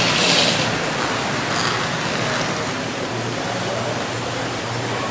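Steady rushing hiss of room noise with no clear machine rhythm; a brighter, higher hiss stops abruptly under a second in.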